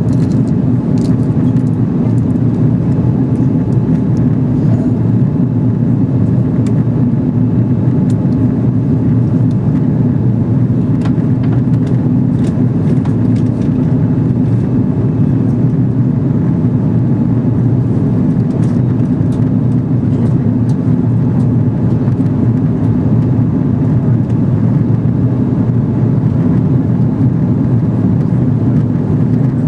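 Steady cabin noise inside an Airbus A330 airliner in flight: an unbroken drone of engines and rushing air, heaviest in the low range, with a few faint clicks.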